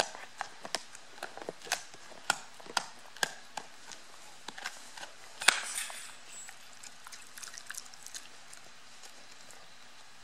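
A dog gnawing a rawhide chew: sharp crunching clicks about two a second, the loudest about five and a half seconds in. The chewing thins out after about seven seconds and stops near the end.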